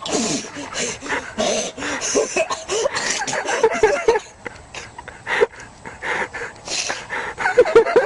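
A rapid string of short sneezes, one after another.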